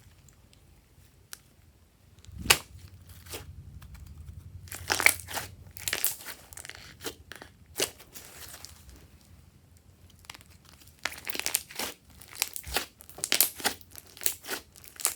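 Slime being squished and worked by hand, giving irregular sticky pops and crackles with one sharp snap early on and denser bursts of crackling in the second half.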